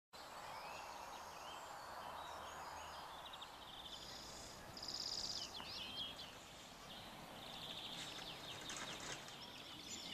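Outdoor ambience of songbirds chirping and trilling over a steady background hiss, with the loudest bird phrase a little before the middle.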